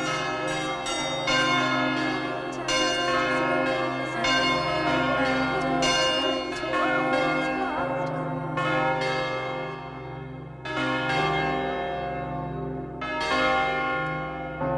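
Bells struck one after another every second or two, each ringing on and overlapping the next, over a steady low hum; it dips about ten seconds in before a fresh strike.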